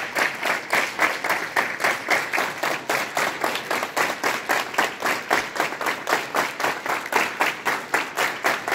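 Many children clapping in unison in a fast, steady rhythm of about four to five claps a second.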